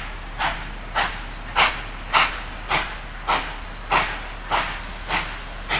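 Baldwin-built steam locomotive 5910 working under steam, its exhaust chuffing in an even rhythm of a little under two beats a second, each beat a sharp puff of steam.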